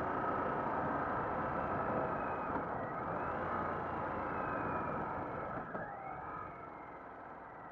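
Harley-Davidson Sportster under way, heard from the rider's camera: wind rush and the engine note, with a few faint gliding tones as the engine pitch shifts. The sound dies down over the last couple of seconds as the bike slows.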